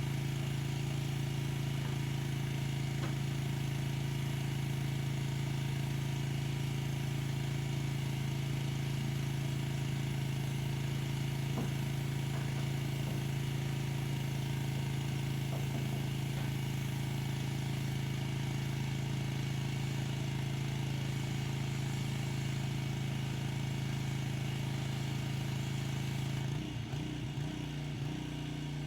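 Pressure washer running with a steady motor hum under the constant hiss of the spray. Near the end the hum wavers unevenly for a couple of seconds.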